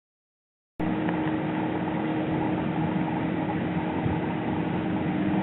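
A steady mechanical hum with a constant low tone, starting abruptly a little under a second in and holding even: machinery or ventilation running in the background.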